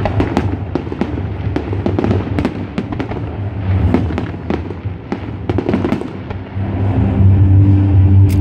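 Fireworks display: aerial shells bursting in a rapid string of sharp bangs and crackles. Music plays underneath and grows louder near the end.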